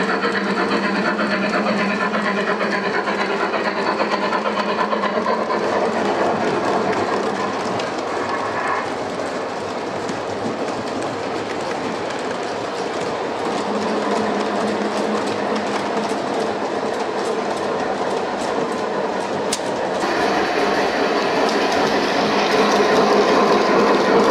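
Gauge 1 model trains running over the track: a steady rolling rattle with quick clicks of the wheels over rail joints. The sound shifts and grows louder near the end.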